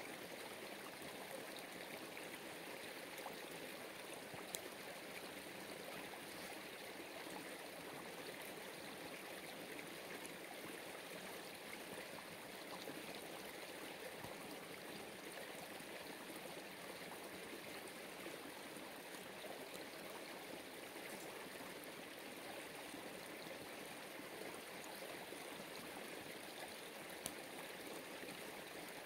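Small stream running steadily, with a couple of faint ticks.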